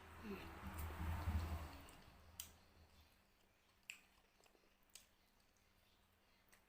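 Quiet eating sounds from a person eating fried carp: soft chewing and handling in the first couple of seconds, then a few separate sharp little clicks.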